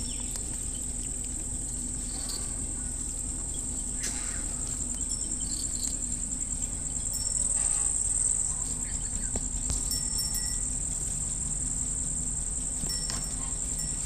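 A steady, high-pitched drone of crickets chirring, with faint crunches now and then from rabbits chewing fresh greens and carrot close up.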